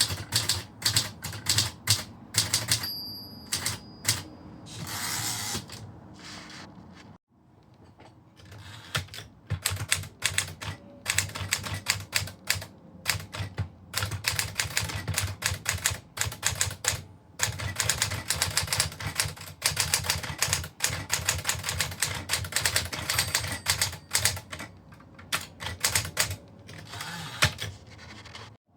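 Typewriter keys striking in quick, irregular runs of clicks. A short bell-like ring sounds about three seconds in, then a brief rushing noise. The clicking breaks off for a moment about seven seconds in and then carries on.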